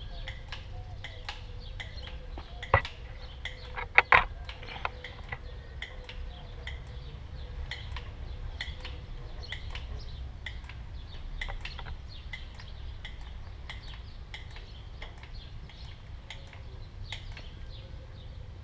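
Caulking gun clicking as black silicone is squeezed out, with two sharp, loud clicks about three and four seconds in and many fainter clicks throughout.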